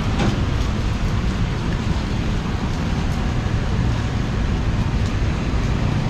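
Steady city street noise in the rain: a constant wash of traffic rumble and rain with no single event standing out.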